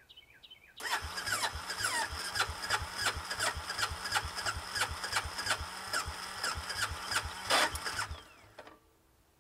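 Electric starter cranking the Bombardier Traxter 500's single-cylinder four-stroke engine with the choke held out, for about seven seconds, with an even chug of compression strokes under the starter's whine. The engine does not catch, typical of a carburetor and fuel system after years of sitting, and the cranking stops abruptly.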